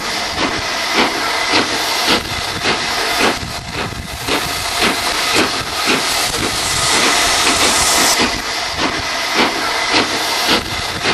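BR Standard Class 9F steam locomotive hissing steam, with a regular beat about twice a second. The hiss grows stronger around seven seconds in.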